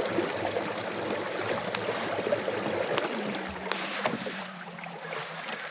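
Water rushing and splashing along the hull of a moving kayak, with a low steady hum joining about halfway through.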